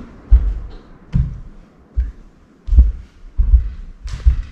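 Footsteps: a steady series of low thumps at a walking pace, about eight in all.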